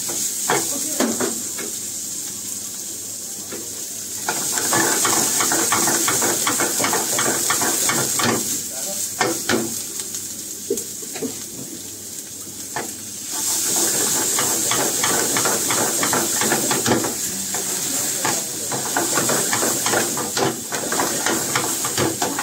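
Sliced onion and capsicum sizzling in a steel frying pan over a high gas flame, with a metal ladle clattering and scraping against the pan as they are stirred. The stirring and sizzling get louder about four seconds in and again past the midpoint.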